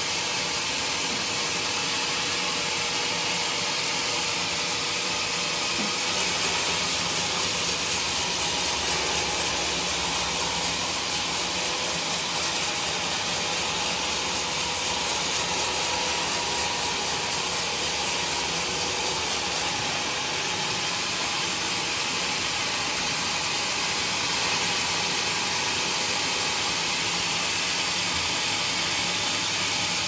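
Sawmill band-saw blade running and ripping through a mahogany log: a steady mechanical whir and hiss of the cut. It grows a little louder and hissier for a stretch in the middle.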